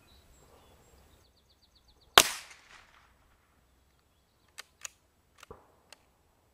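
A single shot from a Glenfield Model 25 .22 rimfire bolt-action rifle: one sharp, loud crack with a short trailing echo. About two seconds later come five quick metallic clicks as the bolt is worked.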